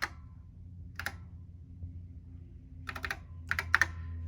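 Keystrokes on a computer keyboard: single key presses at the start and about a second in, then two quick runs of several keys in the last second and a half. A low steady hum runs underneath.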